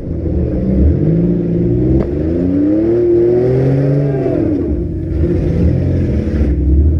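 Compact demolition derby cars' engines revving up and down, with a sharp knock about two seconds in.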